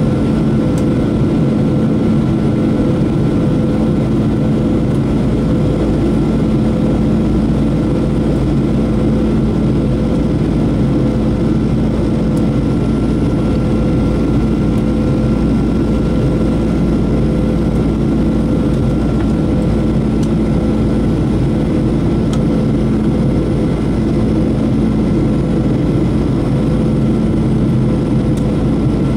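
Steady cabin drone of a Boeing 737-800 on approach, heard from a seat beside the wing: the CFM56-7B turbofan engines and rushing airflow, a constant roar with a few steady hums in it.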